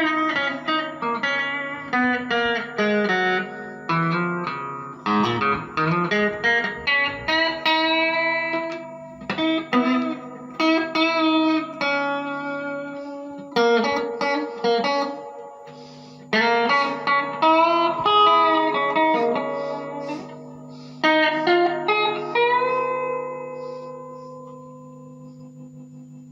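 Electric guitar played clean through a small tube guitar amplifier with its reverb on: picked notes and chords, ending on a chord left to ring out and fade.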